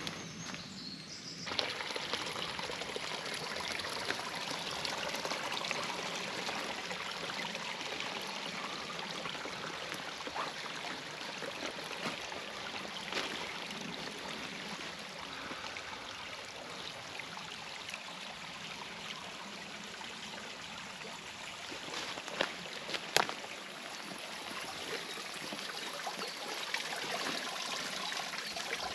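Small brook running, a steady rush and trickle of water, with a few sharp knocks about three-quarters of the way through.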